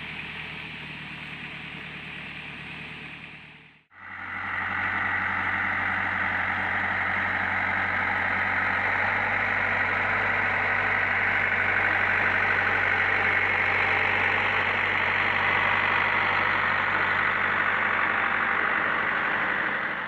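Zetor 7011 tractor's four-cylinder diesel engine running steadily as it works a potato spinner digger through the field. The engine is quieter at first; after a sudden break about four seconds in it is louder and close.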